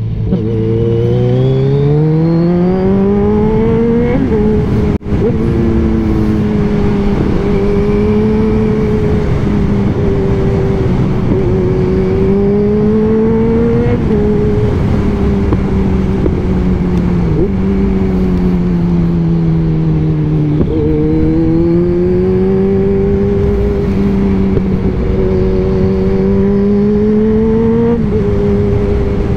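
Kawasaki Z1000 inline-four running through a single exhaust while riding. The engine note climbs for the first few seconds, drops at a gear change about four seconds in, then holds a steady cruise with gentle rises and falls. It dips and picks up again twice around the middle, and there is another shift near the end. The sound cuts out for an instant about five seconds in.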